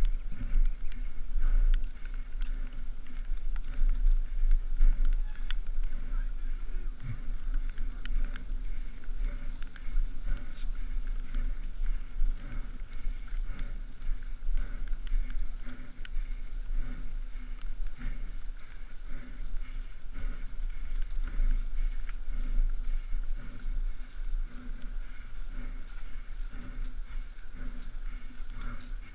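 Helmet-camera recording of a mountain bike on a rough trail: wind buffeting the microphone as a steady low rumble, with the bike's frequent rattles and knocks over the ground.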